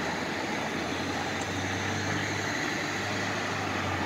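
Steady city street background noise: an even rush of traffic, with a low constant hum setting in about a second and a half in.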